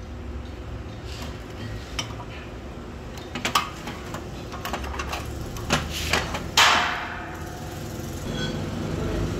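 Twisted wrought-iron basket pieces clinking and clanking against a steel workbench as they are handled and set down, about a dozen irregular metal knocks, the loudest a little past halfway with a brief ring. A low steady hum runs underneath.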